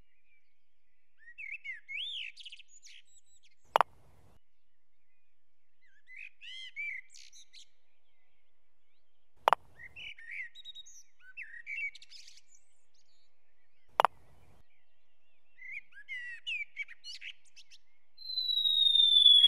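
Sparse bird chirps and twittering, broken three times by a single sharp click spaced about five seconds apart, the clicks being the loudest sounds. Near the end a loud whistle starts and falls steadily in pitch.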